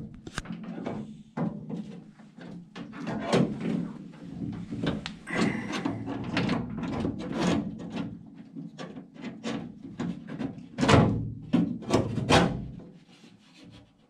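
Parts being worked into a 1952 Ford F1's steel door through its inner access opening: a run of knocks, clicks and scraping, with two louder knocks near the end.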